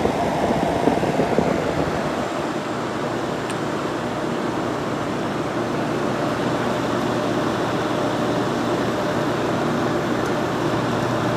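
Late-1960s Sears Coldspot 6,000 BTU window air conditioner running, its fan blowing and compressor on, a steady rushing hum with a faint steady tone in it.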